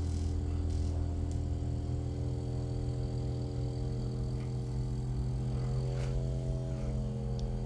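Percussive massage gun running with a steady low buzzing drone; its pitch shifts slightly about six seconds in.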